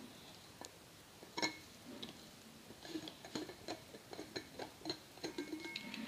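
Clicks and small knocks of a Sea to Summit 360° insulated bottle's plastic screw lid being turned and taken off by hand, with a light crinkle of plastic packaging. One sharp click about a second and a half in, then a quick run of clicks over the last three seconds.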